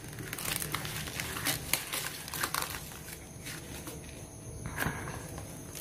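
Paper crumpled by hand in a string of short, irregular crinkles as the used paper lining of a small plastic gecko tub is pulled out and balled up.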